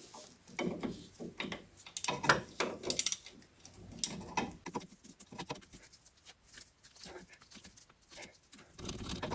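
Hand tools working a seized, rusted bolt: irregular metallic clicks, knocks and clatter, busiest about two to three seconds in.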